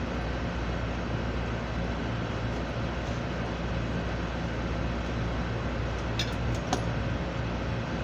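Steady mechanical hum of running rooftop air-conditioning equipment, with a few light metallic clinks about six seconds in.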